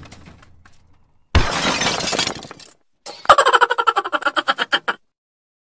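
Cartoon intro sound effects: a crash like breaking glass about a second in, then a fast run of clicks with a falling tone that cuts off suddenly.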